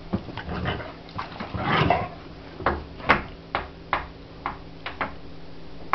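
Dogs scuffling: a rustling burst about two seconds in, then a string of sharp knocks and thumps at about two a second.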